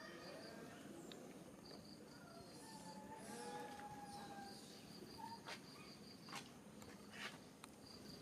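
Faint outdoor ambience: an insect chirping in rapid, high-pitched pulse trains that stop and start, with a few faint held calls about three seconds in and some soft clicks later.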